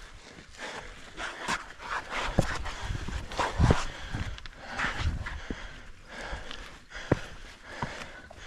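A hiker's footsteps on a steep rocky trail, with heavy breathing from the climb and scattered scuffs and knocks.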